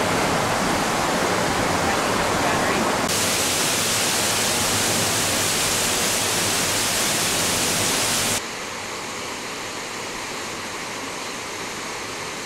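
Rushing water from the gorge's cascades and waterfalls, a steady loud rush of noise. About three seconds in it turns abruptly brighter and hissier, and about eight seconds in it drops to a quieter, duller rush.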